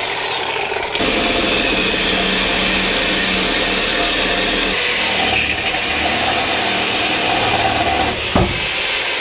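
A Harbor Freight reciprocating saw runs steadily as it cuts through a Ford Crown Victoria's steel exhaust pipe at the rear catalytic converters. There is one short, sharp knock near the end.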